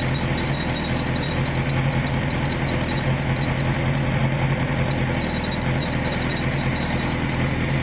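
Honda CBR929RR's inline-four engine idling, with a steady, high-pitched whistle from the water pump, a squeal that comes on as the engine gets hot. It is the sign of a worn water pump, cured by fitting a pump repair kit.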